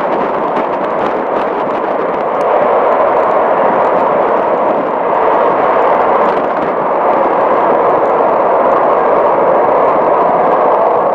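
Eurofighter Typhoon jets' Eurojet EJ200 turbofans at take-off power without afterburner as the jets climb away: a loud, steady jet noise that grows slightly louder about two and a half seconds in.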